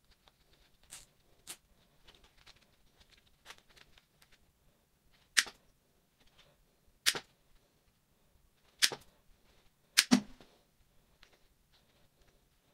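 Side cutters snipping the tails off black nylon cable ties: five sharp snaps a second or two apart, the last two close together. A few fainter clicks come in the first two seconds, as a tie is pulled tight.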